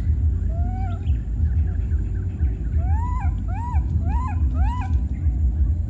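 Baby long-tailed macaque giving coo calls: one short rising call near the start, then four arched calls in quick succession that rise and fall in pitch, over a steady low rumble.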